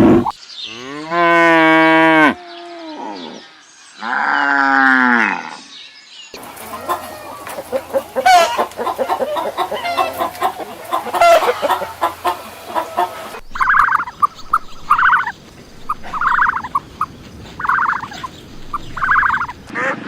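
Cattle mooing twice, two long calls each falling at the end. These are followed by chickens clucking in a busy chatter, then a run of five or six short, evenly spaced calls.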